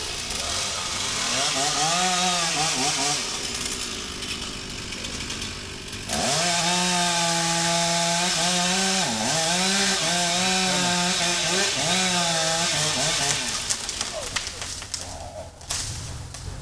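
Gas chainsaw revving high while cutting tree limbs, its pitch dipping sharply a few times as the chain bites into the wood. The saw revs up briefly near the start, runs at full throttle through the middle, then drops off near the end.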